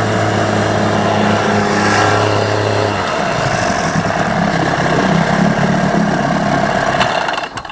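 An 8 hp outboard motor drives an inflatable boat with a steady tone. About three seconds in its note changes and wavers as it slows, and near the end the motor stops.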